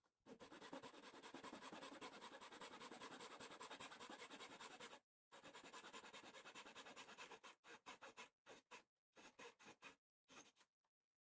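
Fine-tooth hobby razor saw cutting into a thin wooden bulkhead of a model ship hull with faint, rapid back-and-forth strokes. The sawing runs steadily, breaks off briefly about five seconds in, then resumes and comes in shorter runs of strokes with pauses near the end.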